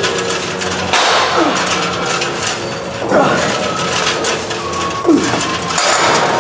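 Cable lat pulldown machine worked in steady repetitions, about one every two seconds: each rep brings a short falling squeak and a rush of cable and weight-stack noise.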